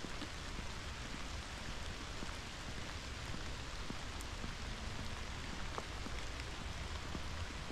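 Steady cold rain falling, with scattered drops ticking close by.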